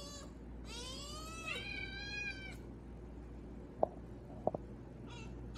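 A cat meowing: one drawn-out meow of about two seconds that rises in pitch and then holds. Two sharp clicks follow a second or two later.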